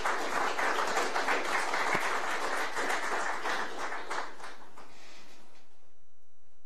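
Audience applauding, a dense patter of many hands that dies away about five seconds in.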